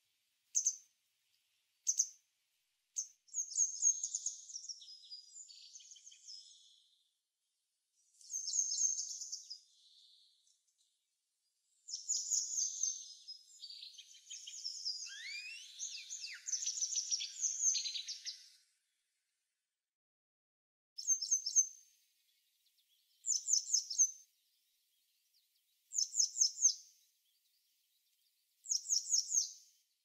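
Small songbirds calling: short high chirps and twittering trills in bouts with pauses between. In the last third one bird repeats a short, rapid phrase about every two and a half seconds.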